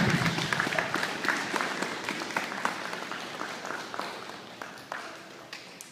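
Audience applauding, the clapping loudest at the start and gradually dying away.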